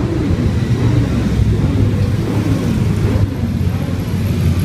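A procession of motorcycles riding past close by, engines running steadily, with pitch rising and falling as the bikes go by.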